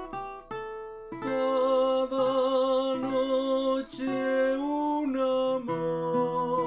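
Music: plucked acoustic guitar notes, joined about a second in by a singing voice holding long notes with vibrato over the guitar.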